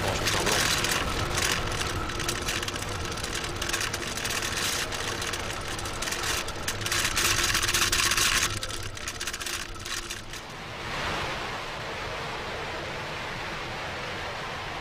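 Exhaust noise of a Falcon 9 rocket's nine Merlin first-stage engines climbing after liftoff: a loud, crackling rush. About eight and a half seconds in it drops in level and becomes a duller, steady rushing noise.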